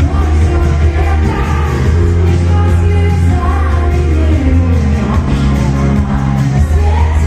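A pop-rock band playing live with a singer's vocal over it, loud with heavy bass.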